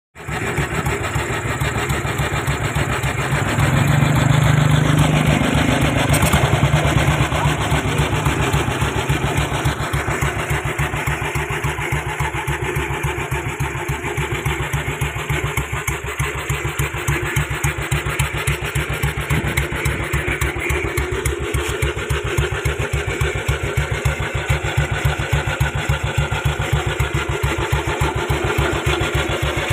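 1941 BSA 600cc single-cylinder motorcycle engine running, louder for a few seconds about four seconds in, then settling to a steady idle with an even, regular beat.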